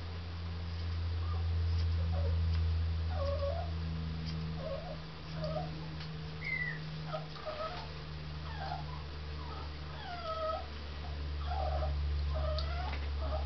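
A dog whimpering: a run of short, high whines, one or two a second, some rising and some falling in pitch, starting about three seconds in, over a steady low hum.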